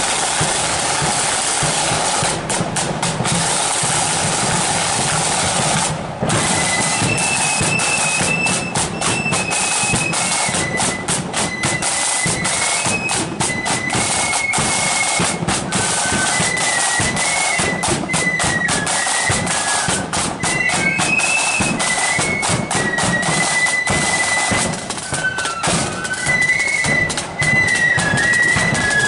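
Marching flute band: side drums and bass drum beat alone for about six seconds, then the flutes come in with a high tune over the drumming.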